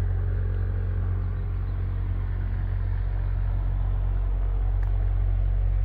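Steady low engine drone, unchanging, with no other events standing out.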